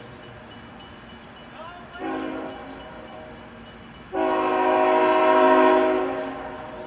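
A CSX diesel locomotive's air horn sounding a short blast, then a long, loud blast about two seconds later that fades away, the close of the long-long-short-long grade-crossing signal.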